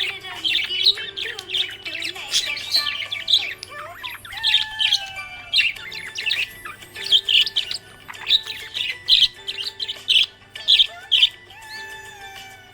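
Budgie chirping and chattering in rapid clusters of short, high chirps.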